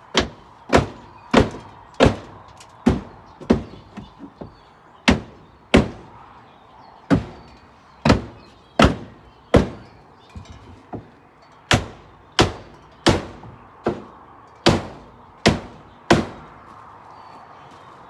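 A hammer striking wood over and over, about one blow every two-thirds of a second, with two short pauses of lighter taps; the blows stop near the end.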